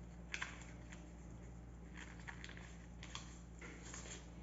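A sheet of paper being folded and creased by hand for a paper airplane: faint rustles and crinkles in a few short bursts, over a low steady hum.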